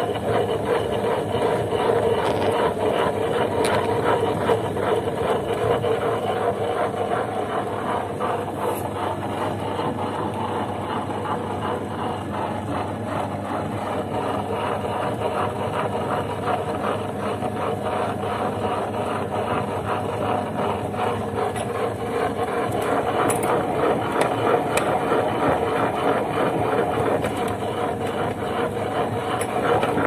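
Small electric kitchen appliance running steadily, a motor hum with a fine, even rattle.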